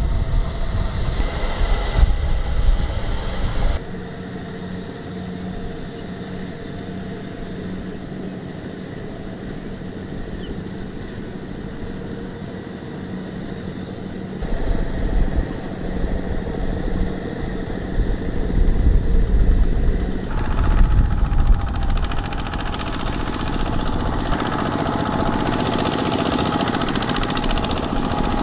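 Single-cylinder diesel engines of Kubota two-wheel hand tractors running under load as they pull trailers of rice sacks. The sound changes abruptly several times, quieter for a stretch after about four seconds and louder again from about two-thirds of the way through.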